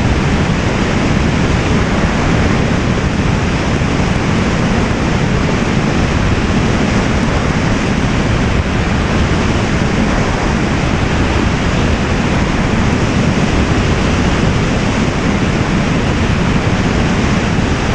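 Wind rushing over the microphone of a camera flown high in the air: a loud, steady, unbroken rush with no pitched motor whine or separate events.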